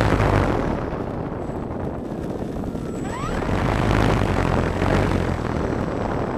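Electric motor and propeller of an FMS P-51 Mustang model running on the ground, a steady rushing roar with a low hum, heard through the plane's onboard camera microphone in the propeller blast.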